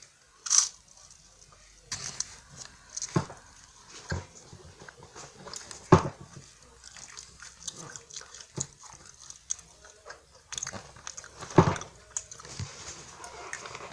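Close-up mouth sounds of someone biting and chewing a flaky French Pie pastry: irregular crisp crunches, the loudest about six seconds in and just before twelve seconds.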